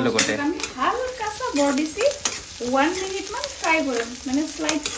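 Sliced onions sizzling in hot oil in an iron kadai while a steel spatula stirs and scrapes the pan, with a few sharp clicks and a wavering pitched squeal that rises and falls with the strokes.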